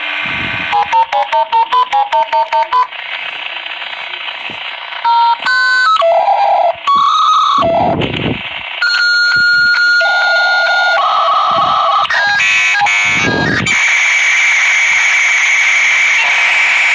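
Dial-up modem placing a call and connecting: a dial tone, about ten quick touch-tone digits dialled, then the answering handshake of changing tones and squeals, settling into a steady hiss near the end.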